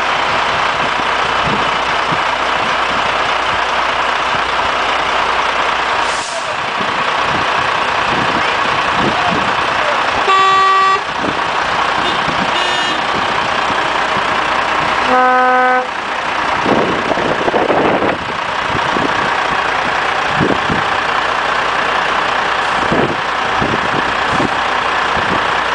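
Heavy truck diesel engines idling steadily in a line, with two short horn blasts about ten and fifteen seconds in, the second lower-pitched, and a faint brief toot between them.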